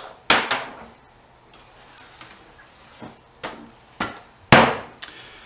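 Objects being picked up off a wooden tabletop and set down: a lighter, a cardboard gauze box and a metal spray-adhesive can. The result is a series of separate sharp knocks and clacks, the loudest about four and a half seconds in.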